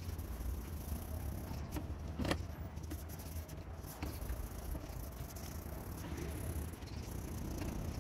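A sandpaper strip rubbed back and forth around a knife's resin handle by hand, a dry scratching over a steady low hum, with one sharp click about two seconds in.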